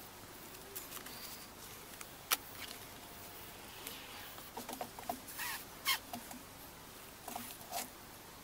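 Filler spreader scraping and tapping on a mixing board as body filler is mixed with hardener: a few sharp clicks and short scrapes over quiet room tone.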